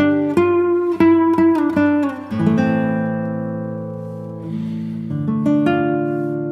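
Acoustic guitar music: a run of picked notes, then strummed chords left to ring and slowly fade.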